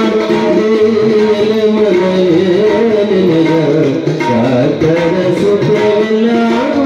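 Harmonium and tabla playing a Kannada devotional song. A steady harmonium drone runs under a melodic line that bends and glides like a singing voice.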